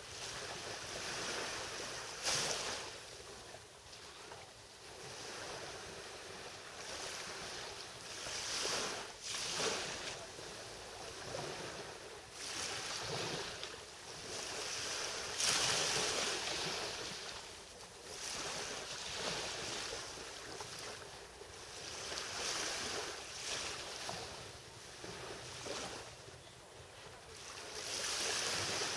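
Small sea waves lapping and breaking on a sandy beach: a soft wash of surf that swells and fades every two to three seconds.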